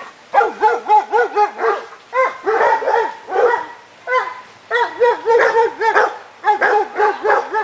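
Several dogs barking excitedly in quick runs of about three or four barks a second, with short pauses between runs and barks overlapping at times.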